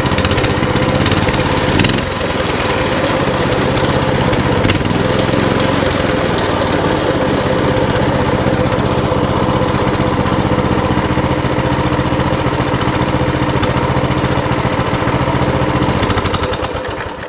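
Coleman CT200 mini bike's 196cc single-cylinder engine idling steadily at about 1750 rpm, its idle just turned down so the bike no longer takes off on starting. There is a light click about two seconds in, and near the end the engine is shut off and winds down.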